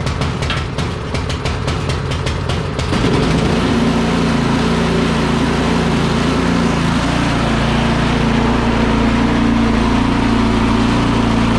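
Craftsman 24-inch snow blower's 208 cc single-cylinder engine starting: a fast chatter of turning over, then it catches about three seconds in and runs steadily.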